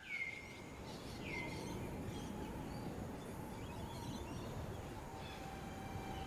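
Rainforest ambience: a bird gives two swooping calls in the first second and a half, with scattered faint chirps over a low, even background rumble. Faint steady tones come in about five seconds in.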